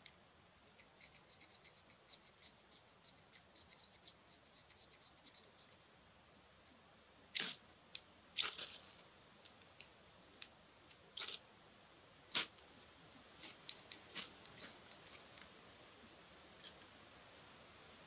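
A knife blade shaving thin curls off a dry split stick to make a feather stick, in quick short scrapes. About seven seconds in, the strokes turn louder and longer.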